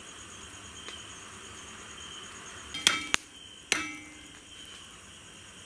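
A utensil striking a metal bowl three times about halfway through, each clink ringing briefly, over faint steady insect chirring.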